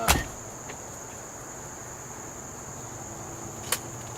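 A Benjamin Trail NP nitro-piston break-barrel air pistol fires once at the very start: a single sharp shot, the loudest sound here. A weaker sharp click comes near the end, and crickets chirp steadily throughout as a high, even trill.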